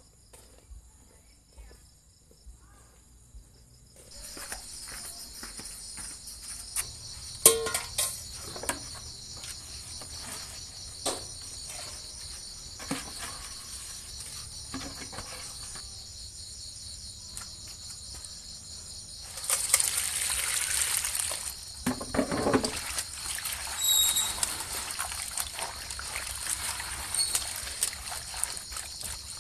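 Crickets trilling steadily and high-pitched, over knocks and rustling as melinjo leaves are tipped from a plastic bucket into a steel bowl. About two-thirds of the way through comes a louder rush and splash of water as the leaves are washed by hand.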